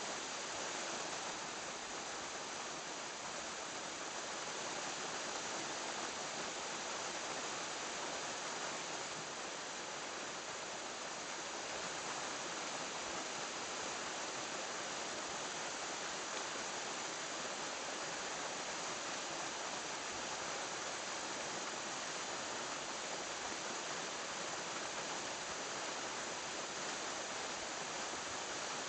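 Steady, even hiss of running water, unchanging throughout, with a faint thin high tone held underneath.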